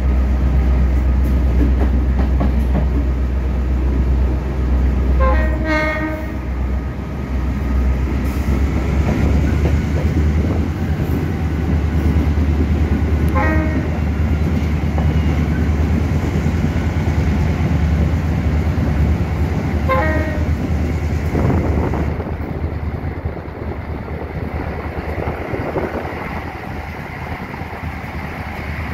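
EMD GL18B diesel-electric locomotive under way, heard from beside its cab: a steady low engine drone with wheel and rail noise. Three short horn toots come about five, thirteen and twenty seconds in.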